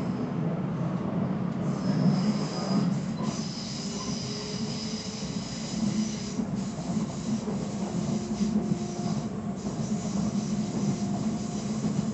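Running noise inside an FGC 112 series electric train at speed: a steady low rumble from wheels and track, with a high-pitched wheel squeal from about two seconds to six seconds in.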